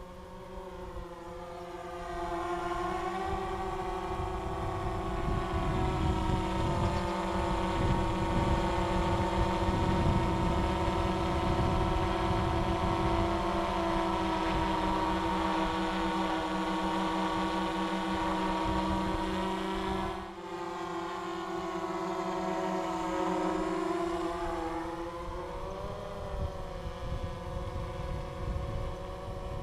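GoPro Karma quadcopter's propellers whining as it flies in and hovers close. The steady multi-tone hum grows louder about two seconds in, then fades and shifts in pitch near the end as the drone pulls away. Wind rumbles on the microphone underneath.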